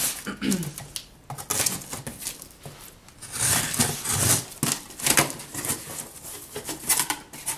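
A cardboard shipping box being opened by hand: irregular bursts of scraping, tearing and rustling of tape and cardboard, with sharp clicks.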